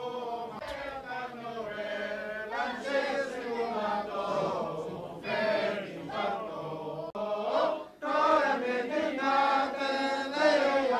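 Men chanting Jewish prayers, a sung melody that rises and falls with short pauses for breath.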